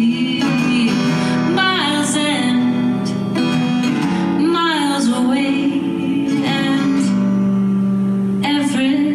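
A woman singing live with her own acoustic guitar played underneath. She holds long notes, with the voice sliding down in pitch a few times.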